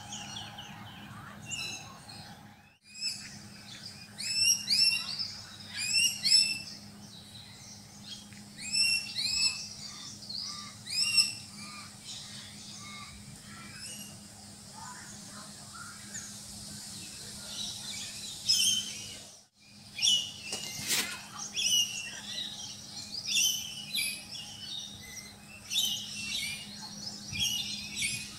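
Wild birds calling in bushland: clusters of short, sharp, repeated high chirping calls come and go over a faint steady hum. The sound drops out briefly twice.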